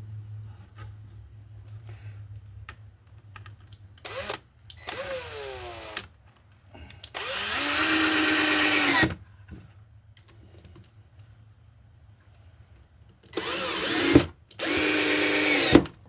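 Drill driving screws into pine boards in several short runs, the longest about two seconds, its motor whine rising in pitch as each run starts.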